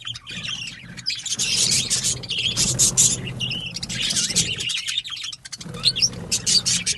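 Parrot chick crying: runs of rapid, rasping chirps, with brief breaks about a second in and again about five seconds in.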